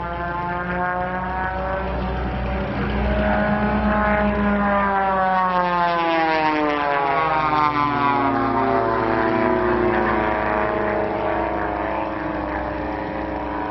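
Engine and propeller of the AR-6 Formula One pylon racer, a Continental O-200 flat-four, flying past. It is a steady, even engine note that gets louder a few seconds in, then drops smoothly in pitch over several seconds as the airplane passes.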